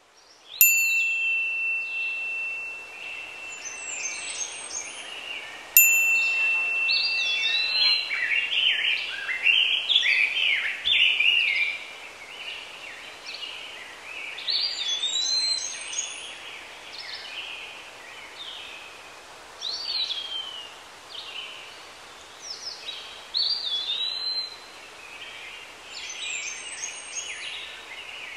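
A high, clear chime is struck twice, about a second in and again about six seconds in, and each strike rings out and fades over a few seconds. Songbirds chirp and whistle throughout, many short calls with rising and falling notes, over a steady background rush.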